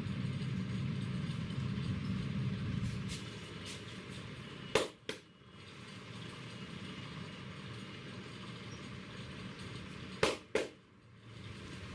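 Two pairs of sharp smacks from a barber's hands during an Indian head massage, a pair about five seconds in and another near the end, each pair's strikes a fraction of a second apart. Underneath is a low rumble of passing traffic.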